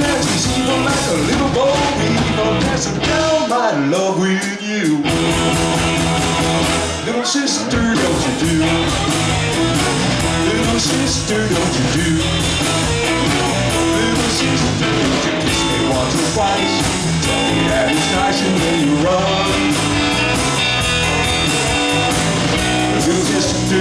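Live rock and roll band playing with electric guitars, electric bass and drum kit. The bass and drums drop out briefly about four seconds in and again about seven seconds in.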